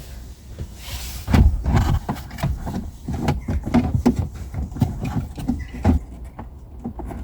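Irregular clicks, knocks and rubbing of hands and a screwdriver working a plastic wiring connector at the back of a car instrument cluster, prying at its locking tab and lever to release it. The loudest knocks come about a second and a half in.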